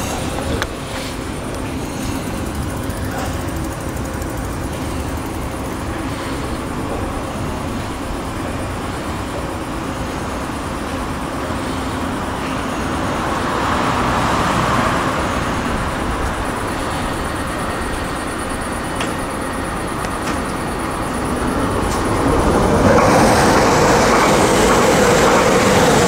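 GVB metro train standing at the platform with its doors open, its equipment humming steadily. Near the end a Dutch Railways (NS) passenger train passing on the adjacent tracks grows louder, with a rising steady whine.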